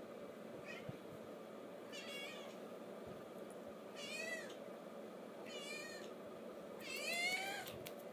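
A 12-day-old Ragdoll kitten mewing: about five short, high-pitched mews about a second and a half apart. The first is faint and the last, near the end, is the loudest and longest.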